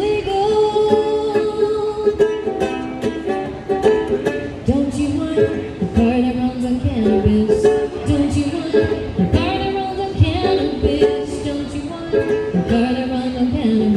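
A woman singing live while strumming a ukulele.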